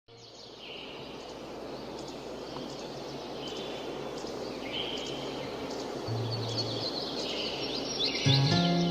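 Rural outdoor ambience fading in: a steady background hiss with birds chirping repeatedly, busier in the second half. Near the end a plucked Sundanese kecapi zither begins to play.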